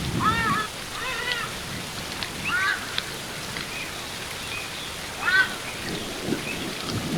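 Ibis giving short, arched calls in small clusters through the first three seconds and once more, loudest, a little past five seconds, over the steady rush of a waterfall.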